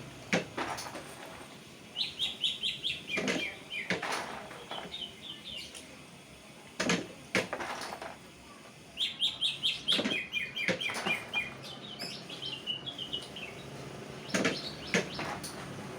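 Caged canary chirping: two runs of quick repeated high notes, one about two seconds in and a longer one about nine seconds in, with scattered sharp clicks and knocks between them.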